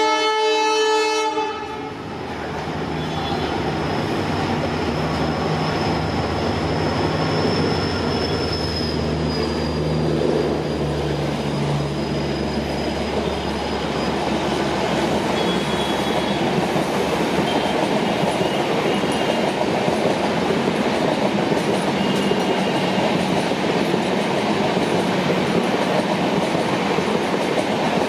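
A diesel locomotive's horn sounds in one short blast, about a second and a half long. Then comes the steady drone of an EMD WDP-4D diesel locomotive's two-stroke engine passing, which fades after about 13 seconds. The rumble and clickety-clack of passenger coaches rolling by continues to the end.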